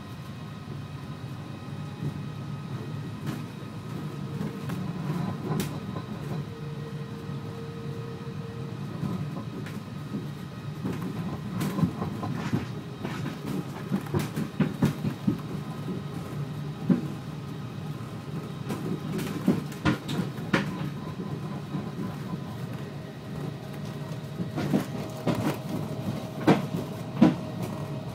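Ride inside a Heathrow ULTra driverless electric pod running along its guideway: a steady low running hum with tyre rumble. Irregular knocks and rattles from the cabin come more often in the second half, and a higher steady tone joins near the end.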